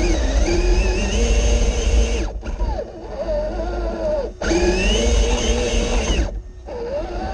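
Axial SCX6 rock crawler's electric motor and geared drivetrain whining under load, the pitch rising and falling with the throttle over a low rumble. Twice the whine falls away sharply as the throttle is let off, and it picks up again after each drop.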